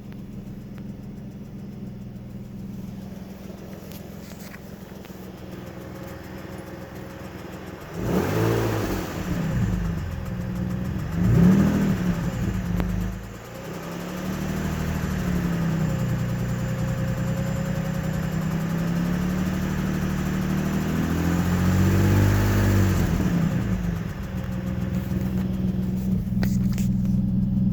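Nissan 350Z V6 engine idling steadily and revved up and back down about four times, run to show a ticking noise.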